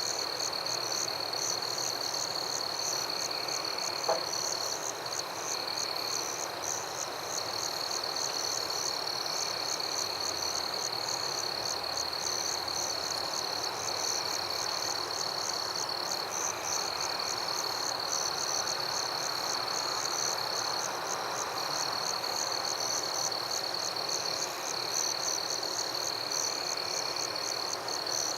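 Night chorus of insects and frogs: a steady high insect trill that breaks off briefly now and then, a faster pulsing chirp above it, and softer calls repeating every second or two. There is a single short click about four seconds in.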